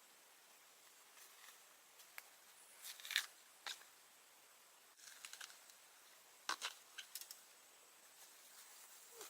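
A few scattered light crackles and snaps, the loudest a little after three seconds in and a cluster near seven seconds, over a quiet background.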